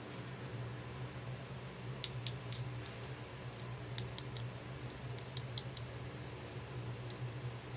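Small hard-plastic doll hats being handled, giving light clicks and taps in three quick clusters of three or four. A steady low hum runs underneath.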